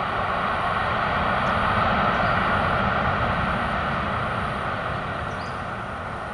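Jet engines of a landing Airbus A330-200 (General Electric CF6-80E1 turbofans) as it rolls out down the runway: a steady rushing engine noise that swells slightly and then slowly fades as the aircraft moves away.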